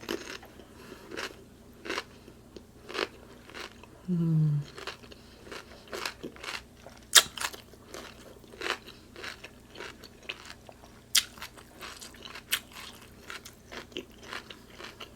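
Close-up chewing and wet mouth clicks of someone eating a seafood boil, with scattered sharp smacks. About four seconds in there is a short hum that drops in pitch.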